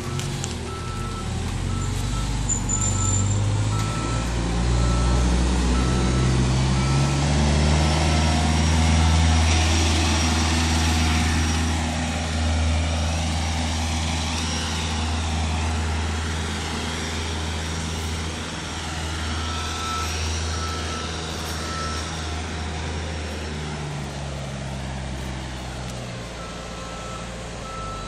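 Forklift engine running and revving up in steps, then easing off, while a reversing beeper sounds repeatedly, about two beeps a second, near the start and again in the second half.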